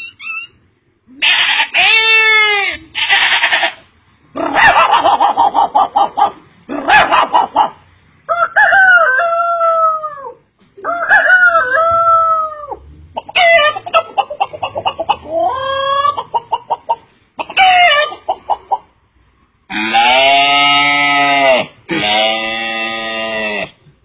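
A man imitating animal calls with his voice: a run of about nine separate calls with short gaps, some sliding down in pitch, some wavering, the last two long and held.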